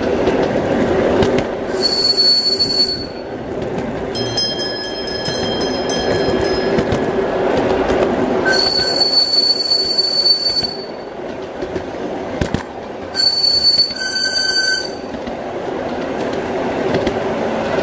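Large-scale model of an Alishan Forest Railway steam locomotive running on garden track with a steady running hum. Several high-pitched wheel squeals come and go, each lasting one to three seconds.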